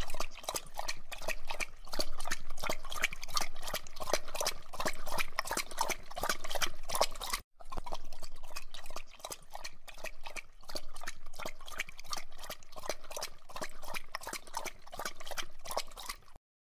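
Small dog lapping beer from a full pint glass: a quick run of wet tongue-on-liquid laps, broken by a short pause about halfway through.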